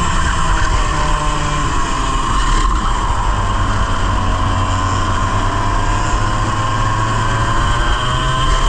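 100cc two-stroke kart engine, heard onboard, dropping in revs into a corner and then climbing slowly and steadily back up. The revs are slow to recover, which the driver puts down to a fault that made the engine bog in every turn and lack power until partway down the straight.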